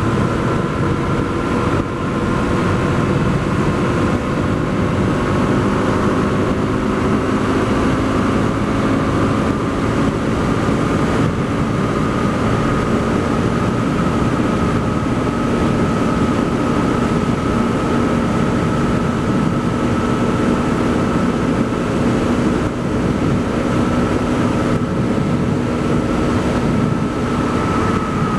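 Honda CRF250L's single-cylinder engine, breathing through an FMF Q4 HEX slip-on exhaust, running steadily while the bike is held at high road speed. Its pitch climbs slightly over the first dozen seconds and then holds, over a low rumble of wind and road noise.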